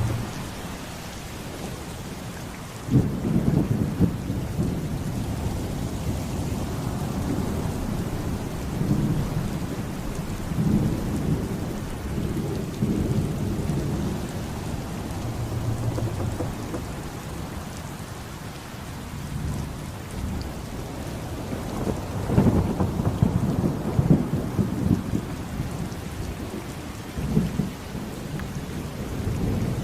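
Rain falling steadily under rolling thunder. The deep rumbles swell and fade several times, strongest about three seconds in and again in the last third.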